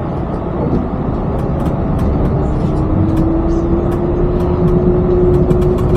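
Vehicle running: a steady rumble with a whine that starts about two seconds in and slowly rises in pitch.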